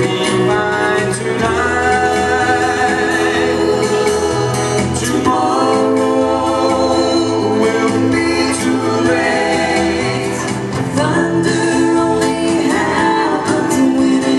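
Music: singing with held, wavering notes over an instrumental backing track.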